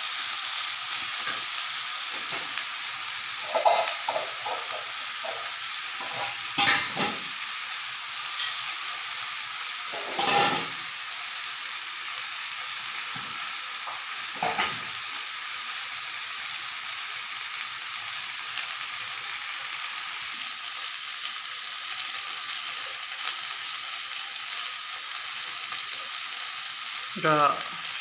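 Sliced okra and pointed gourd sizzling steadily in oil in an aluminium kadai, stirred with a metal spatula that scrapes and knocks against the pan a few times.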